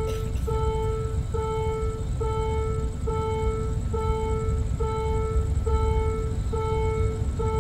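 Railway level-crossing warning alarm sounding: the same single-pitched tone repeats steadily, a little more than once a second, each tone held most of the interval, over a steady low rumble.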